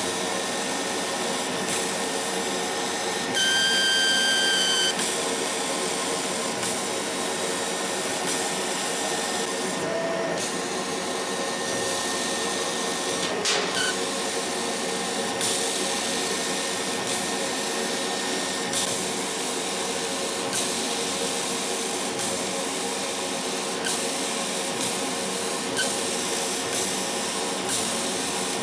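CO2 laser cutter running while it cuts, with a steady hiss and hum of the machine and its air assist. About three seconds in, a clear whistling squeal sounds for about a second and a half. The owner takes this for the laser beam itself squealing at the nozzle exit, a fault that comes with a drop of a couple of milliamps in tube current and incomplete cuts.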